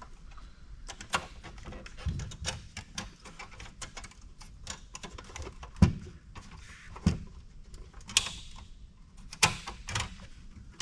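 Irregular clicks, rattles and knocks of plastic and sheet metal as a floppy drive is worked loose from its latches in an old desktop PC's drive bay, with a few louder knocks in the second half.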